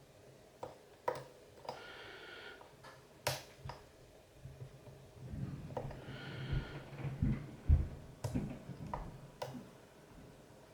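Disc-detainer pick working the discs of an Oxford Scoot XA5 alarm disc lock: scattered small metallic clicks, two brief squeaky scrapes, and low handling knocks as the lock is turned in the hand.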